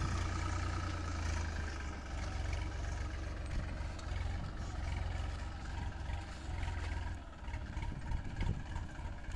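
Massey Ferguson tractor's diesel engine running steadily at low speed while it pulls a pair of wooden hoes through the cotton rows. About seven seconds in, its low, even sound turns more uneven.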